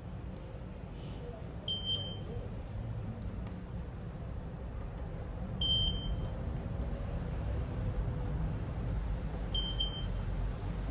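Short high electronic beep from the fire alarm system, sounding three times about four seconds apart over a low steady rumble.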